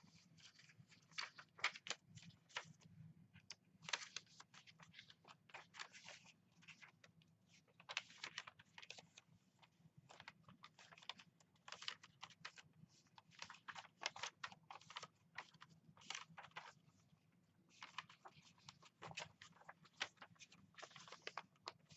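Faint, irregular crackling and rustling of paper, like the pages of a thick, collaged junk journal being handled and flipped through.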